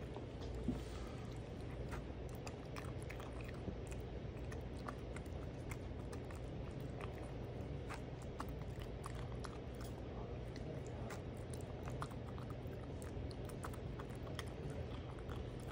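Maine Coon kitten eating canned wet cat food from a paper bowl: continuous wet chewing and lapping, heard as many small irregular clicks and smacks, over a steady low hum.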